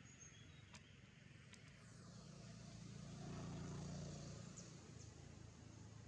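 A distant motor vehicle passing: a low engine sound that swells, is loudest about three and a half seconds in, and then fades, with a few faint clicks before it.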